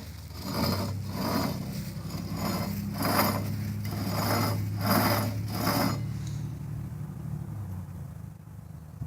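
Worn wheel bearing hub assembly from a Dodge Ram 1500 turning with a rough, rhythmic grinding about every half second over a steady low hum: the sign of a bad bearing. The grinding pulses stop about six seconds in, and the hum fades soon after.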